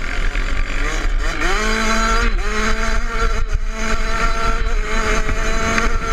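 Kawasaki KX 65 dirt bike's 65cc two-stroke single-cylinder engine revving up under throttle about one and a half seconds in, with a short break in pitch a moment later, then holding high revs.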